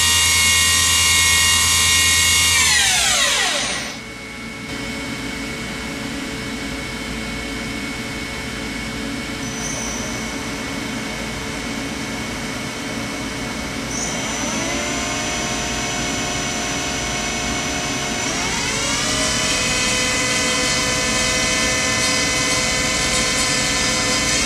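Spindle of a 1996 Eurotech 420-SLL CNC lathe running with a high whine that slides down as it winds down to a stop about three to four seconds in, leaving a steady machine hum. Past the middle the whine rises as the spindle spins up again, then climbs to a higher steady speed about two-thirds of the way through.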